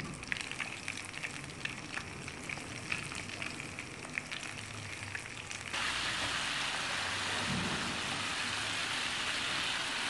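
Flour-coated chicken drumsticks deep-frying in hot oil in a pan: crackling with sharp pops at first, then about halfway through a sudden switch to a louder, dense, steady sizzle.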